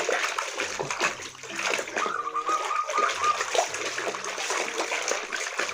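Water splashing and running as a muddy toy vehicle is rinsed and washed clean.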